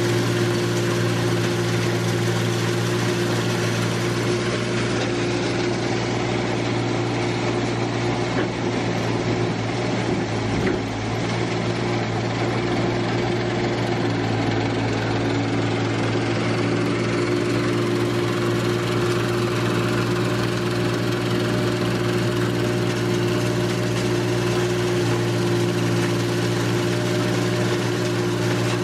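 Engine running steadily at one constant speed, an even hum with no revving.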